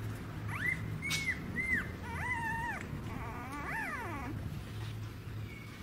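Young puppy whimpering in a string of about five short, high-pitched cries, the last one longer and wavering, while it is held and its maggot-infested skin is worked on.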